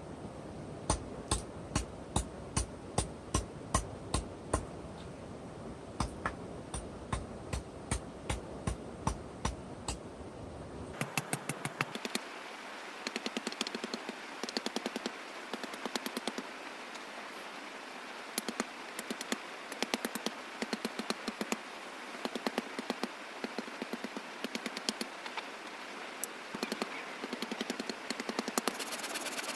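Repeated sharp knocks, about two a second. About eleven seconds in they give way abruptly to quicker, irregular clicking over a steady hiss.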